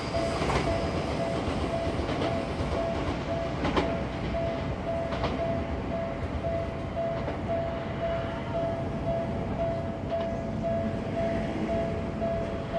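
Japanese level-crossing warning bell ringing in a steady repeated tone while an electric commuter train runs past, its wheels clicking over the rail joints now and then.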